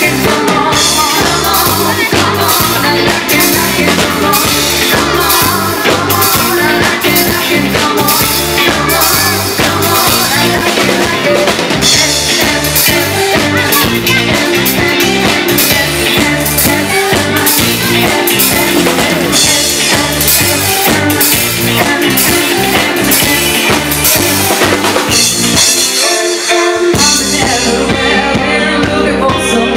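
A live band plays an up-tempo pop-rock song: a woman sings lead over drums, electric bass and keyboards. Near the end the drums and bass drop out for about a second, then come back in.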